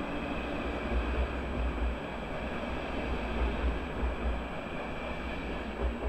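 Double-deck passenger coaches rolling past along the platform: a steady rumble and rush of wheels on rail. It drops away near the end as the last coach clears.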